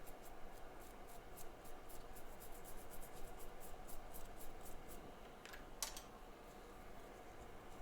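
Light, quick scratching strokes of a small tool on a phone's circuit board, about five a second, followed by two sharper clicks a little past halfway.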